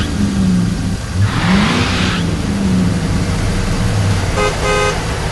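Cartoon sound effects of a pickup truck: an engine revving up with a swoosh about a second in, then running steadily, and two short horn toots near the end.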